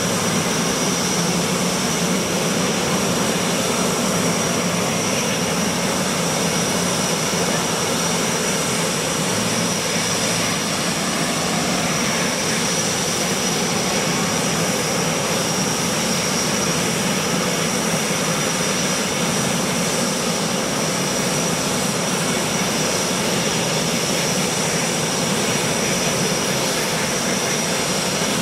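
Jet engine running steadily on the ground: a high, even turbine whine over a constant rush.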